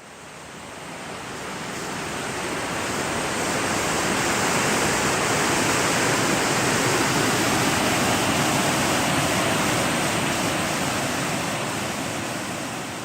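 Rushing water of Brasstown Creek, a steady dense hiss. It swells up over the first few seconds, holds, and eases off again near the end.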